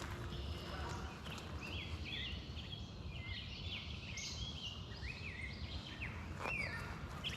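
Songbirds singing: a busy jumble of short, high chirping notes that glide up and down, over a steady low rumble, with a couple of footsteps near the end.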